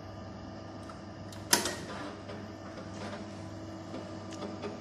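A sharp clack about a second and a half in as the Datapoint 1560's 8-inch floppy drive door is latched shut, over the steady hum of the running computer and its drive motors. A few faint clicks follow as the drive begins to load.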